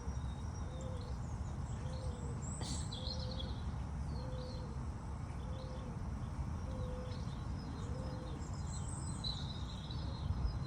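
A bird repeats a short low hooting note about once a second, with small birds chirping faintly higher up, over a steady low background rumble.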